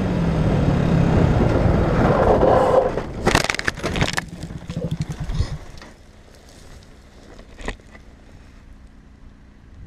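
Yamaha R125 motorcycle's single-cylinder engine running at speed with heavy wind rush, then a crash: loud scraping and impacts about three to four seconds in as the bike goes down. The engine sound dies away by about five and a half seconds, leaving low rustling and one sharp knock near the end.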